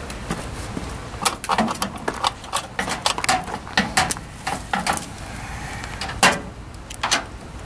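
Brass flare fittings and a refrigerant gauge-hose end clicking and tapping as they are handled and threaded onto the outdoor AC unit's service port: a scatter of short, sharp clicks, the loudest about six seconds in.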